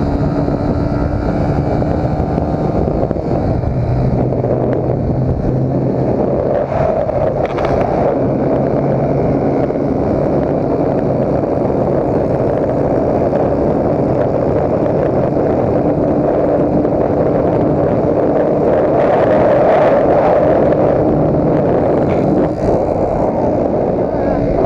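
Yamaha Factor 150's single-cylinder engine running steadily under way, heard close up from the handlebars along with road noise.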